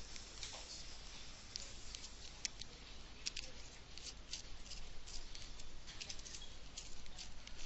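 Faint, irregular small clicks and rattles of a tablet stylus being opened and handled while its battery is changed.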